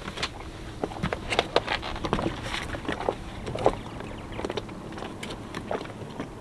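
Scattered knocks, taps and clunks of someone climbing from a sailboat's deck down into an inflatable dinghy, irregular and a few to the second.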